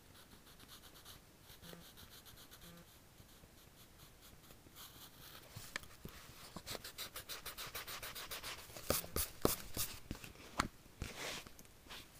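Pencil scratching on lined notebook paper in quick sketching strokes. The strokes are faint and sparse at first, then grow dense and louder from about halfway in, with a run of sharp, rapid strokes near the end.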